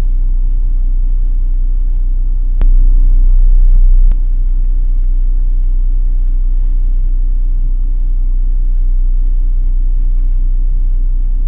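Off-road vehicle's engine and drivetrain running with a steady low rumble and hum, growing louder for about a second and a half a few seconds in.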